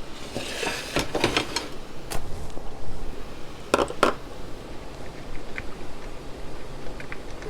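Kitchen clatter from handling utensils and containers over a pot: a quick run of knocks and clinks in the first two seconds, two more about four seconds in, then only faint ticks.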